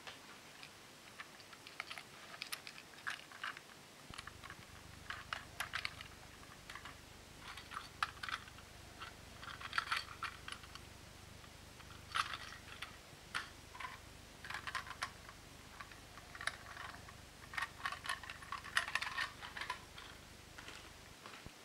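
Small plastic clicks, taps and rattles of Plarail 0 Series Shinkansen toy train cars being handled: irregular clacks as the cars are turned over in the hands and set down on the plastic track.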